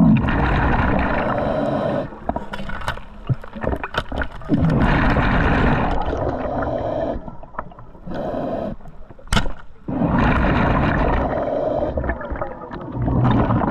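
Scuba diver breathing through a regulator underwater: gurgling bursts of bubbles about two seconds long, repeating every few seconds, with sharp clicks in the gaps.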